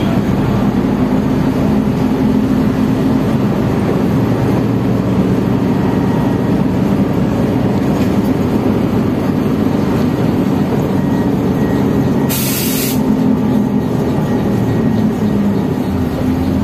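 Transjakarta city bus in motion, heard from inside the cabin: a steady engine drone with road and rattle noise. About twelve seconds in, a short hiss of released air lasts about half a second.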